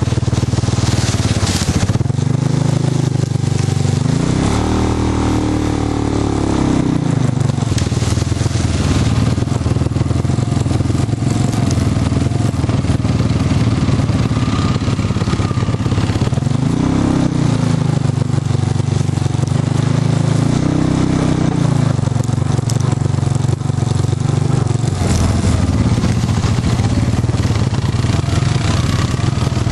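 Off-road vehicle engine running steadily on a leaf-covered dirt trail, its pitch rising and falling three times as the throttle is opened and eased, with a constant rough rumble of tyres over dirt and leaves.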